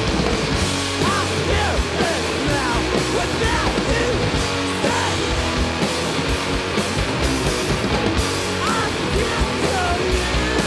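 Rock band playing live: distorted electric guitar, bass guitar and a drum kit with cymbals, loud and steady.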